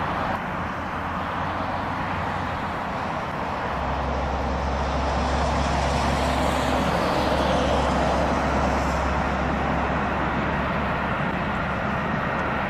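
Rebuilt Bulleid West Country class steam locomotive working past at speed with its train of coaches, a steady rumble that swells from about four seconds in, peaks around eight seconds, then eases slightly.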